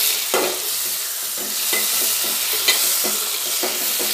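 A spatula stirring and scraping chicken and potatoes in a metal pot, about three strokes a second with a couple of sharper knocks, over a steady sizzle of frying oil. The curry is being sautéed (kosha) until the oil separates.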